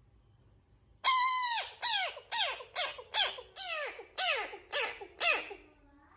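A frog giving a series of about nine loud calls, each sliding down in pitch. The first call is the longest, and the rest follow about half a second apart.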